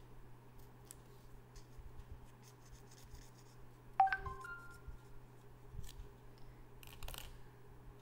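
Faint rustling and crinkling of a folded paper origami bird being handled, with a short, sharp ringing ping about halfway through and a brief louder rustle near the end.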